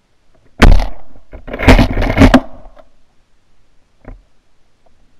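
20-gauge shotguns firing: one sharp, loud shot about half a second in, then a quick string of about three more shots about a second later.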